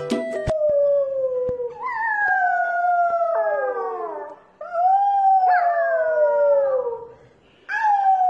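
Corgi puppy howling in long calls that slide down in pitch: two full howls, with a third starting near the end. A moment of music cuts off just after the start.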